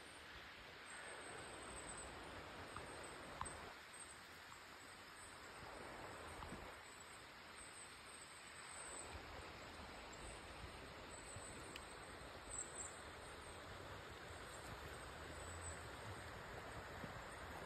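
Faint, steady rush of river water.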